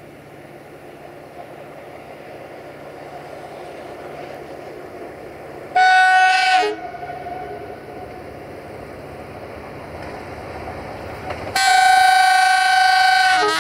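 CFR Class 65 diesel-electric locomotive approaching, its engine rumble slowly growing louder. Its multi-tone air horn sounds a short blast about six seconds in, then a longer blast near the end.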